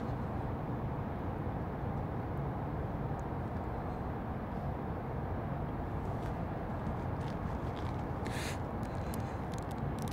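Steady low rumbling outdoor ambience with no clear single source, with a brief hiss about eight and a half seconds in and a few faint clicks near the end.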